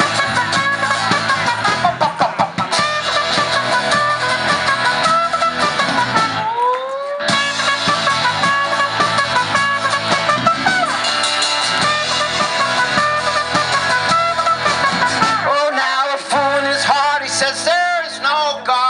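Live folk-rock band playing an instrumental break: a trumpet solo over strummed acoustic guitar, electric guitar and drums. The band thins out near the end.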